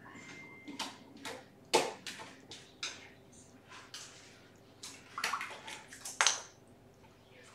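Cats clambering over a fabric-draped stand and blankets: irregular rustles, scuffs and claw scratches, a dozen or so short noises, the loudest about two seconds in and near the end.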